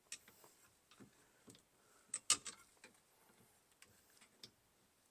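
Scattered sharp clicks and taps of a screwdriver working at a plastic turn signal cancelling cam on the steering column shaft, the loudest pair a little over two seconds in.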